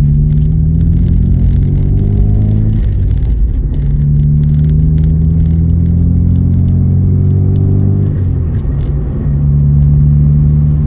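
Proton Saga's four-cylinder engine running under way, heard from inside the cabin over road and tyre noise. Its pitch climbs steadily, falls about three seconds in, climbs again, and falls again about eight seconds in.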